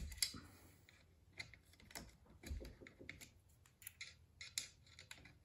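Faint, irregular small metallic clicks and scrapes of a hex key working screws, tightening the kick-back (anti-backlash) nut on a 3018 CNC's z-axis lead screw.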